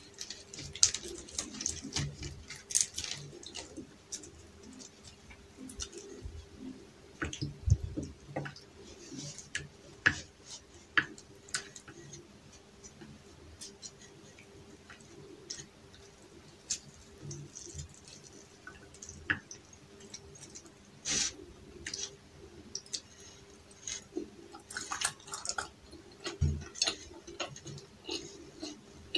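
Close-miked eating sounds: crisp layered flatbread torn by hand and dipped in curry, with wet chewing and mouth clicks coming as irregular short crackles and ticks. A faint steady hum runs underneath.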